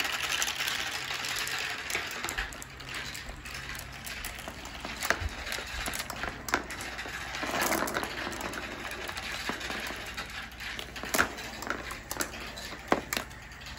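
Marbles rolling along a marble-run track, with scattered sharp clicks as they knock against the track and each other.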